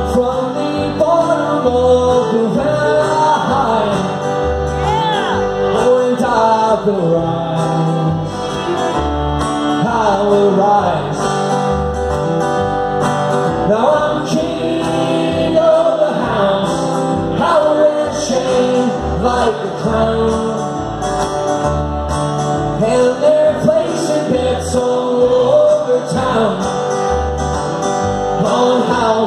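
Live acoustic music: a man singing over strummed acoustic guitar, with a fiddle bowing melody lines alongside.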